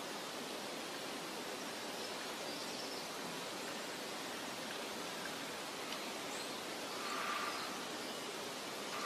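Forest ambience: a steady, even hiss of the woods, with faint bird chirps and a brief louder sound about seven seconds in.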